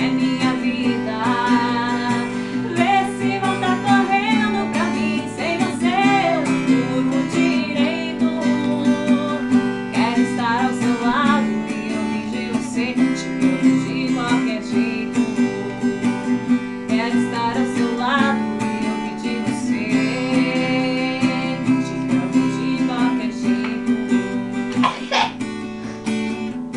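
Acoustic guitar strummed in steady chords, with a woman singing a melody over it that comes and goes.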